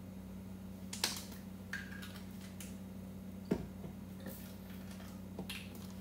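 Extract bottles and a measuring spoon being handled: a few light clicks and knocks, the loudest a thump about three and a half seconds in, over a steady low hum.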